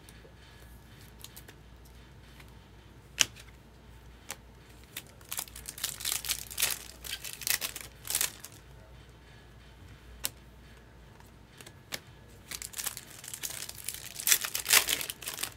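Foil wrapper of a Topps Chrome Cosmic trading-card pack crinkling in the hands and being torn open. There is a sharp click about three seconds in, then crackling spells from about five to eight seconds in and again near the end.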